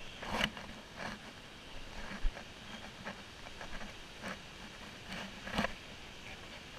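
Irregular scuffs and knocks of hands and bare feet against wet rock, over a steady hiss of trickling water; the loudest knocks come just after the start and again near the end.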